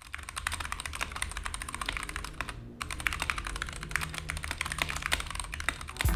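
Fast typing on a Gamakay K61 mechanical keyboard with Gateron Brown switches and HyperX Pudding keycaps: a quick stream of key clicks, with a brief pause about two and a half seconds in.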